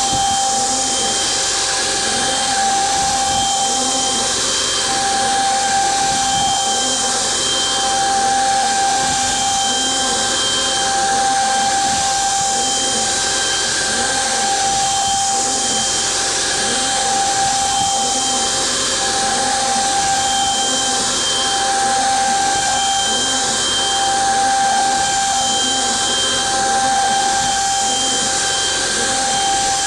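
CNC router spindle running and milling, with a steady high whine over a strong hiss; the whine dips briefly every few seconds.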